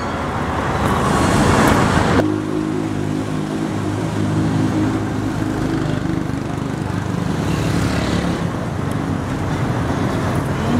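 Street traffic: a vehicle passing, its noise rising for about two seconds and then cutting off abruptly, followed by an engine running with a steady low hum that fades out partway through.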